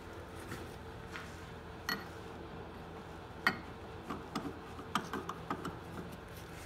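Scattered light metallic clicks and clinks, the sharpest about halfway through and several close together soon after, as the square end of a steel T-handle bar is worked into a freshly broached square hole in the end of a square-threaded lathe screw. A faint steady hum runs underneath.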